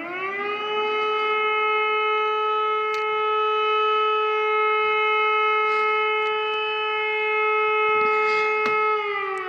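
Civil defense air-raid siren sounding during a city-wide warning test: its pitch rises in the first half second, holds one steady tone for about eight and a half seconds, then begins to fall near the end.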